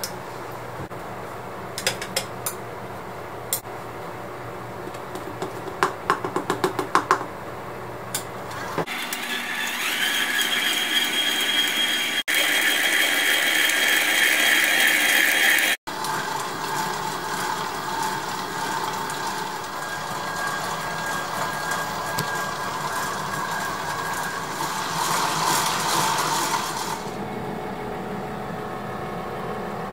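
A few light clicks and taps of a spatula against a glass mixing bowl, then about nine seconds in a KitchenAid bowl-lift stand mixer starts, running with a steady whine as it mixes sticky bread dough. The sound shifts a little around sixteen seconds and the motor stops near the end.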